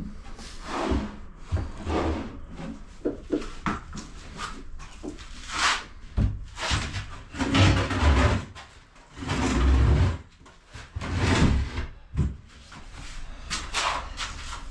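White kitchen base cabinet being carried in and shuffled into place in a corner: irregular knocks, bumps and scrapes of the cabinet's panels against the floor and wall, heaviest about halfway through.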